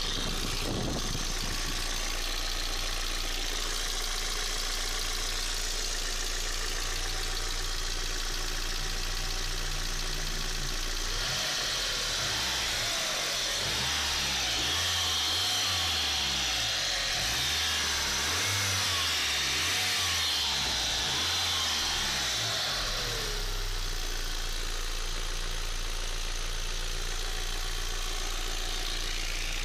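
Hot VW 1.8T AEB turbocharged four-cylinder petrol engine idling with a ticking, diesel-like clatter, revved up and down several times from about 11 s in to about 23 s in, then settling back to idle. The owner wonders whether the tick is a hydraulic lifter or a failing oil pump.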